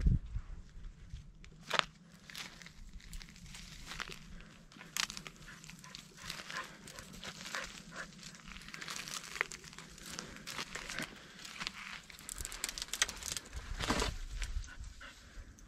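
Irregular crackling and crunching of dry twigs, juniper litter and stones underfoot, with juniper branches brushing past, and a dull thump near the end.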